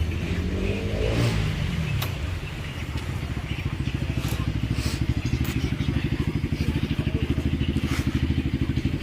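Bajaj Pulsar RS200's single-cylinder engine running, with a pitch change in the first couple of seconds before it settles into a steady, evenly pulsing idle.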